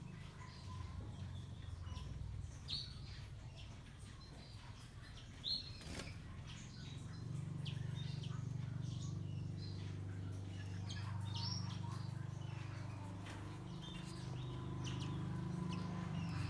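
Caged canary hybrids giving scattered short chirps, with wing flutters, over a low steady hum.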